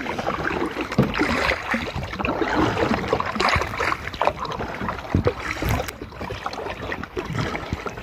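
A kayak being paddled across calm water: irregular paddle splashes and water washing along the hull.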